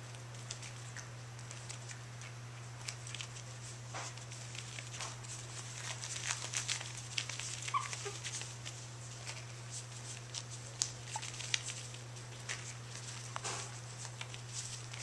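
Chihuahua puppies playing and scuffling: scattered light scratches and taps of paws on fleece and toys, busiest in the middle, with one short high squeak about eight seconds in, over a steady low hum.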